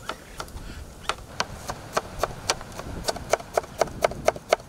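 Kitchen knife chopping cabbage on a plastic cutting board, about three to four sharp knocks a second in a steady rhythm.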